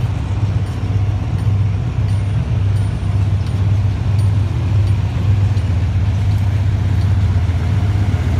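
Diesel-electric locomotive engine running with a steady low drone as it slowly hauls a passenger train out of the station toward the listener, growing slightly louder as it nears.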